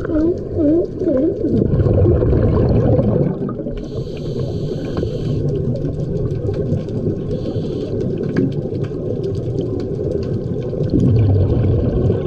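Underwater recording of a scuba diver's regulator breathing: exhaled bubbles rumble out in two surges, with inhalation hisses between them. In the first second or so there is a quick run of short rising-and-falling calls, sea lions vocalizing underwater.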